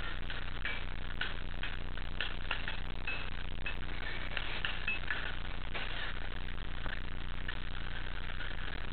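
Hum of a busy indoor play hall with scattered clinks and clicks all through, and a few brief high beeps.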